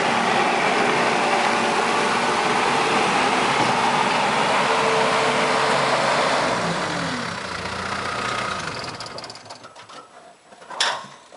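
New Holland LX665 skid steer's turbo diesel engine running steadily, then dropping in pitch about six and a half seconds in and winding down to a stop: the engine being shut off. A single sharp click comes near the end.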